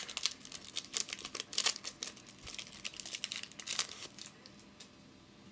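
A trading-card pack wrapper crinkling and tearing as it is opened by hand, a dense crackle that stops about four seconds in.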